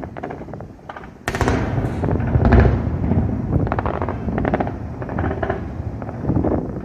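New Year's fireworks going off in rapid volleys of bangs and crackles. A sharp loud burst comes about a second in, followed by dense crackling.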